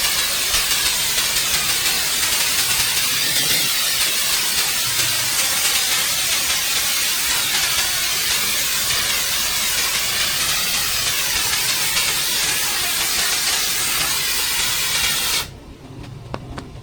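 Pressure washer jet spraying water: a steady, strong hiss that cuts off abruptly near the end.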